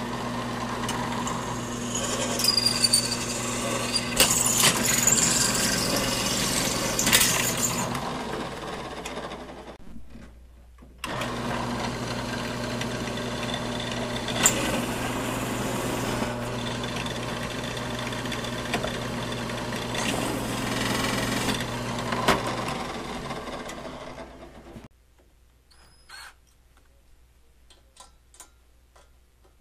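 Drill press motor running with its bit cutting into square metal tubing, with grinding and several sharp squeals. It stops briefly about ten seconds in, runs again, and winds down a little after twenty seconds, leaving only a few faint clicks.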